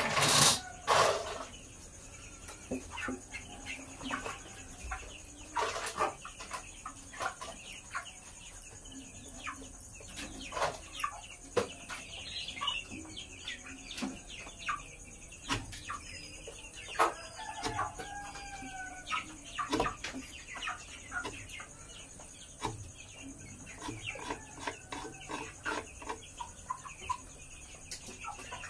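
Broiler chickens clucking and calling, with scattered sharp clicks and taps throughout and a brief loud noise at the very start.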